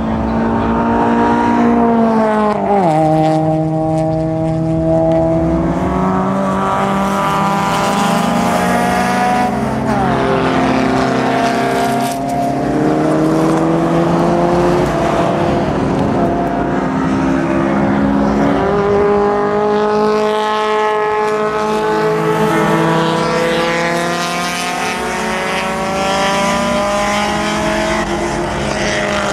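Small race-car engines under hard acceleration, their pitch climbing steadily through each gear and dropping sharply at the gear changes, several times over.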